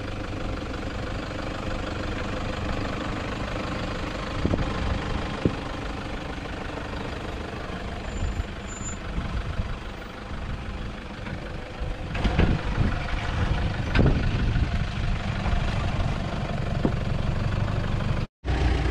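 Toyota Hilux's turbodiesel engine running at low revs as the pickup crawls down a steep sandy track, with a few short knocks about four seconds in and again around twelve to fourteen seconds in. The sound cuts out briefly near the end.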